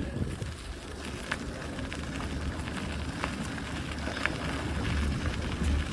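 Wind buffeting an outdoor microphone, a steady low rumble, with a few faint ticks scattered through it.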